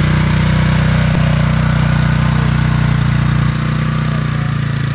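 Polaris Ranger 570 side-by-side's single-cylinder engine running steadily close by. About three and a half seconds in, the sound drops slightly as the vehicle pulls away down the dirt trail.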